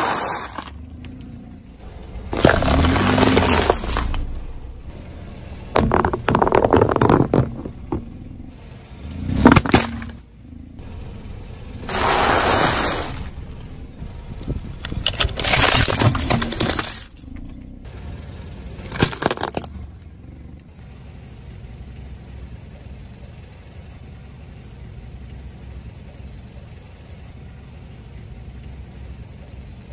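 A car tyre rolling over and crushing objects such as nests of dry spaghetti and a plastic toy: about seven loud bursts of crunching, cracking and breaking in the first twenty seconds, then only a low steady hum.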